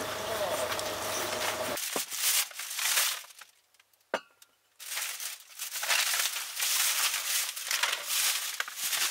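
A plastic snack bag crinkling and rustling in bursts as it is handled and set down. Before it, a steady hum cuts off about two seconds in, and a single click falls in a short quiet gap midway.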